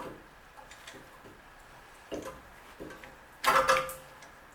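Brake caliper piston wind-back tool being turned by hand, giving a few scattered metallic clicks as the piston is pushed back into the caliper. About three and a half seconds in there is a louder metallic clank with a brief ring.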